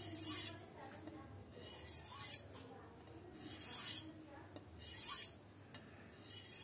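Carbon-steel knife blade drawn along a Turkish masat sharpening steel, honing off a remaining burr. Metal-on-metal swish strokes come about every second and a half, about five in all.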